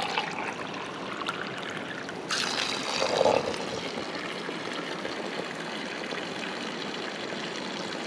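Spring water running steadily out of a pipe, trickling and splashing into a cup and onto the ground. The sound grows briefly louder about two seconds in, then settles back to the same steady trickle.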